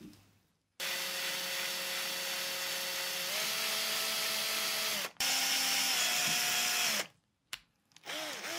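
Small electric drill with a twist bit drilling into the diecast metal of a toy truck's body, apparently drilling out a rivet post. The motor whines at a steady pitch that steps up slightly partway through, stops briefly about five seconds in, runs again until about seven seconds, then comes in short bursts that dip in pitch under load.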